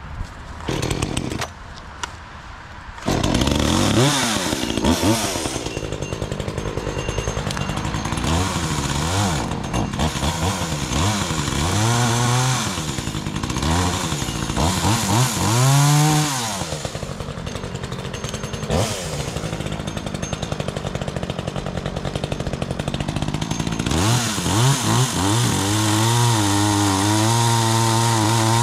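Chainsaw starting about three seconds in after a brief first burst, then running with its engine pitch repeatedly dropping and rising again as it is revved and cut into thick branches.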